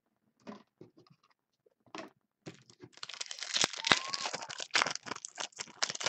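Foil trading-card pack wrapper being torn open and crinkled: a few short rustles, then about three seconds of dense crackling from about two and a half seconds in.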